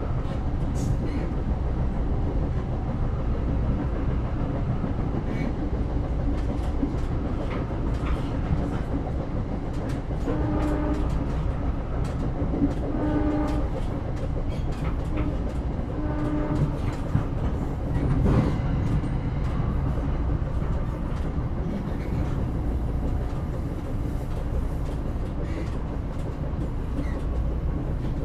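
Train running on rails: a steady low rumble with scattered clicks and rattles from the wheels and carriage. A few short pitched tones sound about a third to halfway through.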